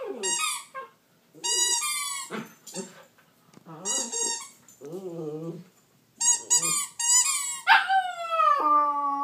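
Miniature pinscher making a run of strange high-pitched whining, yelping vocalizations in about five bursts, the last one sliding down in pitch into a long held whine. The owners take the noises for frustration at not being able to get the squeaker out of his toy.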